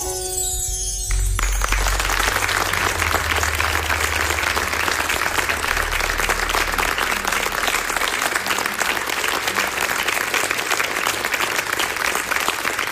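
The band's final chord rings out and stops about a second and a half in, then an audience applauds steadily.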